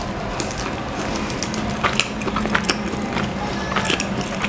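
Crinkling of a paper food wrapper and crackling of flaky puff pastry as pieces are picked apart by hand, in scattered, irregular sharp crackles.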